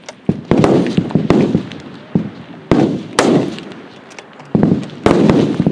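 Centre-fire F-Class target rifles firing along a match line: a string of sharp shots at irregular intervals, some close together, each trailing off in a long rolling echo.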